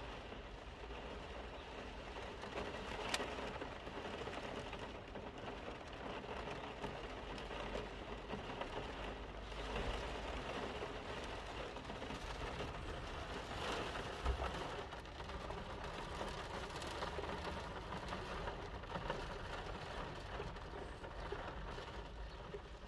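Heavy rain pouring down, an even steady hiss with scattered drop impacts.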